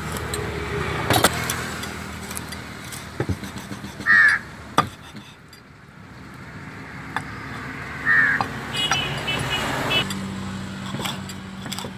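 Large knife chopping through fish on a wooden chopping block, a few sharp chops, while a crow caws twice, short and loud, over a steady low hum of traffic.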